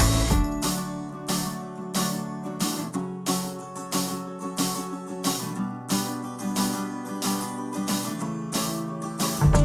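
Background music: strummed acoustic guitar on a steady beat, the bass dropping out for most of the stretch and coming back near the end.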